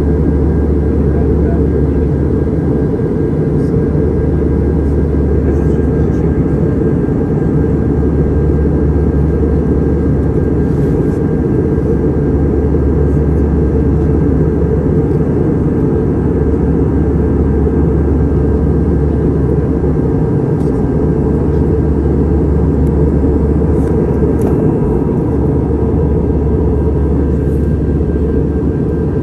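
Steady low drone of engine and air noise inside an airliner cabin, with faint steady whining tones above it.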